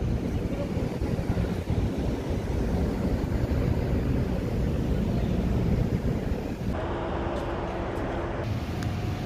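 Steady low rumble with wind buffeting the microphone.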